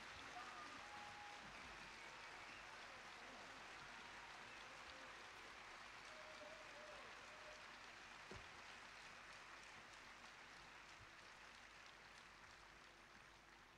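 Near silence: faint crowd applause and cheering, heard only as it leaks into a stage in-ear monitor mix, slowly fading away.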